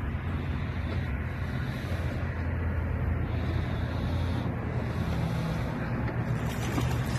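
Wind buffeting the microphone over a steady low hum, with no distinct reel or splash sounds standing out.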